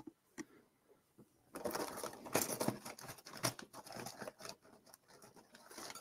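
Rummaging through a box of small hardware and packets: irregular rustling with light clicks and knocks, starting about a second and a half in.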